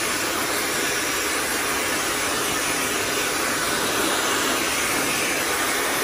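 Laifen Swift high-speed brushless-motor hair dryer with its concentrator nozzle fitted, blowing steadily: an even hiss of air with no change in pitch or level.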